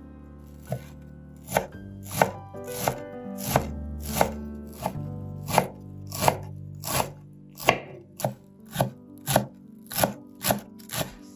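Chef's knife chopping fresh dill on a wooden cutting board: a regular series of sharp knocks, about three every two seconds, slightly quicker near the end.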